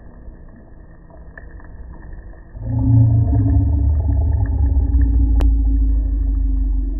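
A loud, steady low engine hum starts suddenly about two and a half seconds in and keeps going.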